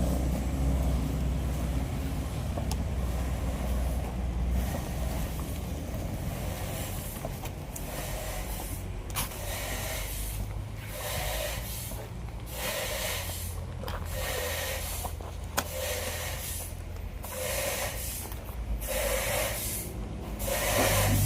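Sawmill machinery running: a steady low engine hum throughout, joined from about nine seconds in by a regular series of hissing, rasping bursts, roughly one every second and a half.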